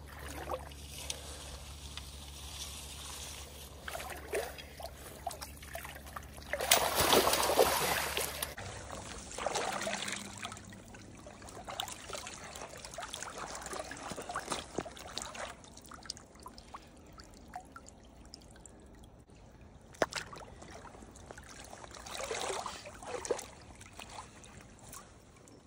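Shallow river water splashing and trickling around a salmon held by hand in the current for release, with the loudest splash about seven seconds in and smaller splashes later.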